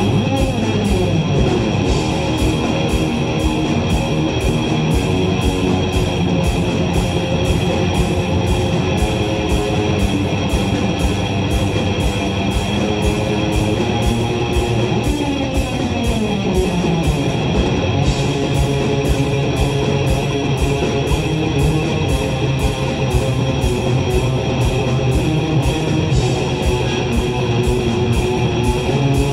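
Live rock band playing an instrumental: a lead electric guitar over drums, bass and keyboards, with a steady drum beat. Two long downward pitch glides are heard, one just after the start and one about fifteen seconds in.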